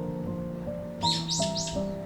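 Soft background music of gentle held notes, with a bird's quick run of high chirps about halfway through.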